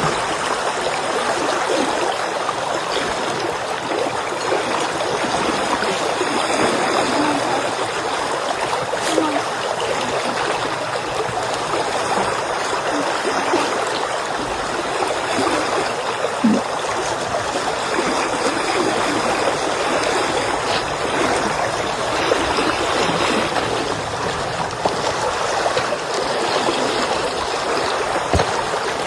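A stream flowing steadily.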